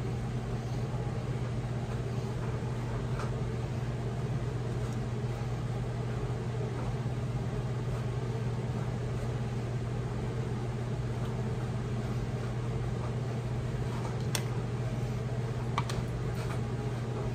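Steady low mechanical hum in a kitchen, with a few faint clicks and taps of utensils against glass canning jars as they are filled.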